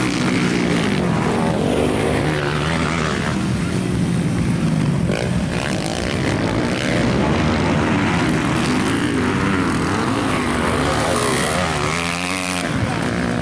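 Several motocross bikes' engines running and revving on a dirt track, their pitch rising and falling with the throttle as riders pass one after another. About 12 s in, a bike passing close gives a sweeping change in its engine note.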